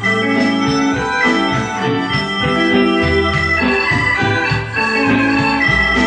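Instrumental backing music with sustained organ-like keyboard chords over a bass line, without singing.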